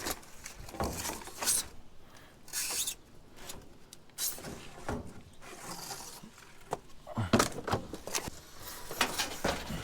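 Rummaging through dumpster scrap: irregular knocks, clunks and rustling as objects are shifted and lifted, with a cluster of louder knocks late on.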